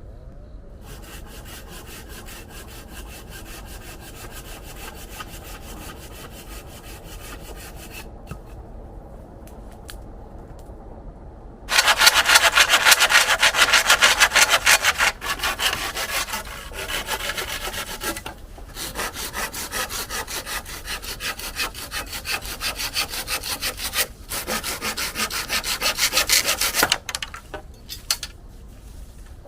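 Hand saw cutting through wood in stretches of steady strokes: quieter at first, then after a short pause much louder sawing that stops and restarts a few times.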